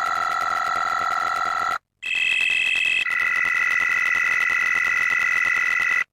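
Electronic emergency-alert attention tone: a steady chord of several pure tones held for about two seconds, cut off by a brief gap, then a higher chord for about a second and another chord held for about three seconds, each change of pitch abrupt.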